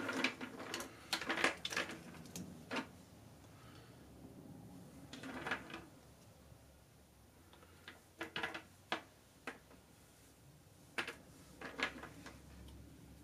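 Small hard plastic Marx toy soldier figures clicking and clattering as they are handled, sorted and set down, in several short bunches of clicks with pauses between.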